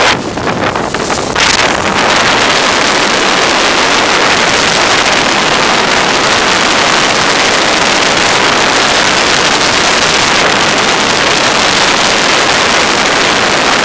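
Wind buffeting the microphone on the deck of a sailboat under way, a loud rush that is uneven for the first second or so and then steady, mixed with water rushing along the hull.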